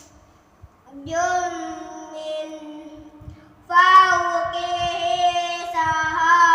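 Quran recitation: a single voice chanting the words 'min fawqihi' in long, held melodic notes, starting after a pause of about a second.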